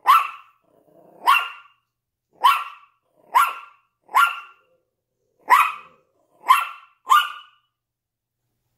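Yorkshire Terrier barking at the window: eight sharp single barks, spaced unevenly about a second apart.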